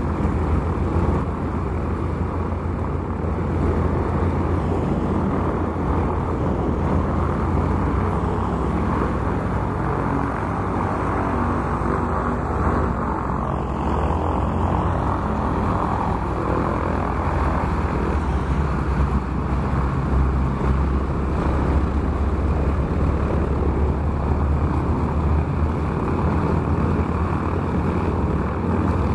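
Several North American T-6 Texan trainers taxiing, their Pratt & Whitney R-1340 nine-cylinder radial engines running steadily at low taxi power with propellers turning.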